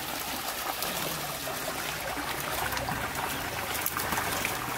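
Water running and trickling in a concrete fish tank, with water streaming off a landing net full of fish as it is lifted out.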